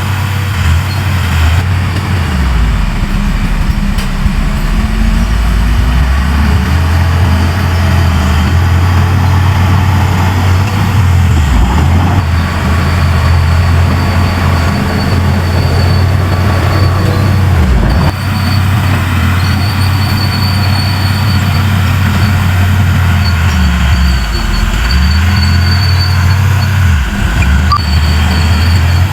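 Large bulldozer's diesel engine running under load, its pitch shifting up and down several times, with a faint high whine coming and going.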